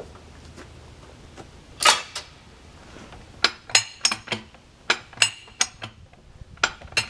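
Metal clicks and clanks of a lever-operated farm jack ratcheting as its handle is pumped to lift and roll a heavy log. There is one loud clank about two seconds in, then a run of sharper clicks, two or three a second, from about three and a half seconds on.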